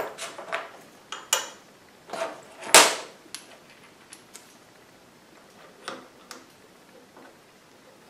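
Small metal workshop parts (steel pins, a steel square, a brass key and an aluminium block) being picked up and set down on a workbench: a run of sharp metallic clicks and clinks, the loudest about three seconds in, then a few fainter taps.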